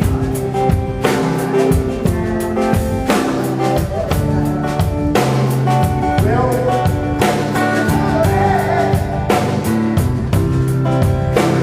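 Live rock band playing a song at full volume, with drum kit hits under sustained guitar and keyboard chords.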